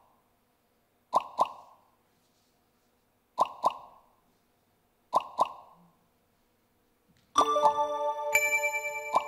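Three pairs of quick, hollow plops, each pair a quarter-second apart and the pairs about two seconds apart. About seven seconds in, bell-like mallet-percussion music starts, with ringing high notes.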